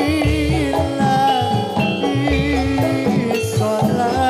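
Javanese gamelan music accompanying a jathilan dance, played loud over a sound system: held metallic notes over regular drum strokes, with a wavering voice-like line.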